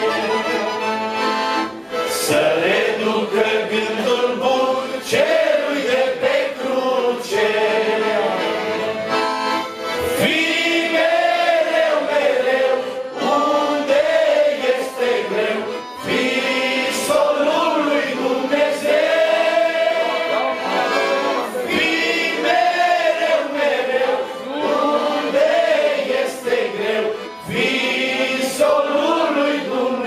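Roncalli piano accordion accompanying a man singing a Romanian Christian hymn into a microphone, with other voices possibly joining in.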